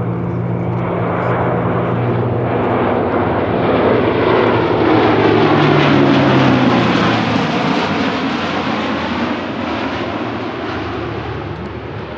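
Airbus A400M Atlas's four turboprop engines and eight-bladed propellers in a low flypast. The drone builds as the aircraft approaches, is loudest about halfway through, then fades as it goes away, the propeller tones dropping in pitch as it passes.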